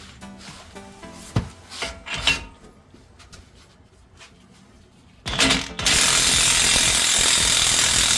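A few metal clanks, then from about five seconds in a cordless DeWalt impact wrench hammering steadily and loudly, driving a press tool that pushes the old wheel bearing out of the hub. Background music plays under the first part.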